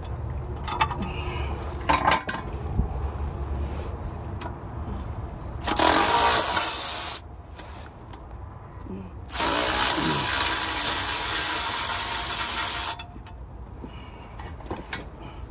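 Cordless impact wrench hammering on the torque converter bolts of a 4L60E transmission, in two bursts: about a second and a half near the middle, then a longer run of about three and a half seconds. A few light clinks of metal come before.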